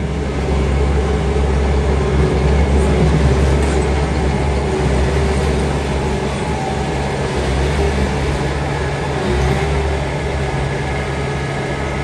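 A steady, loud, low mechanical hum with several held tones, like a motor or engine running continuously.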